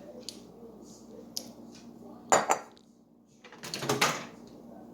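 A glass bowl knocking and clinking against hard kitchen surfaces: a few light clicks, then two louder clatters, one a little over two seconds in and another near four seconds.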